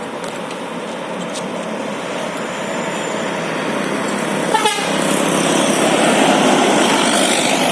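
Bus sounding a telolet horn over the heavy noise of the bus, the sound growing steadily louder, with a short warbling wobble in pitch about halfway through.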